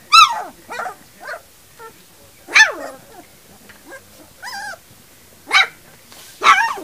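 Three-week-old puppies yipping: a series of short, high-pitched yips that fall in pitch, spaced about a second apart, with the loudest at the start, in the middle and near the end.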